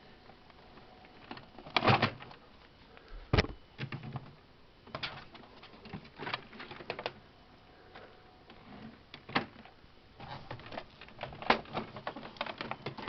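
Hands handling and moving a plastic printer body: irregular knocks, clicks and short rustles, with two sharper knocks about two and three and a half seconds in.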